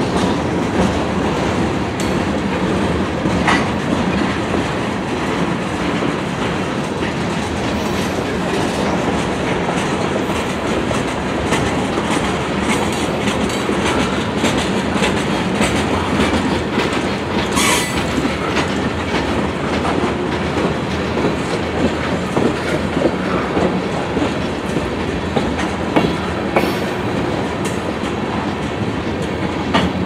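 Freight train's cars (tank cars, boxcars and covered hoppers) rolling steadily past: a continuous wheel rumble with a rapid clatter of clicks from the wheels on the rails, and one brief high-pitched wheel squeal a little past halfway.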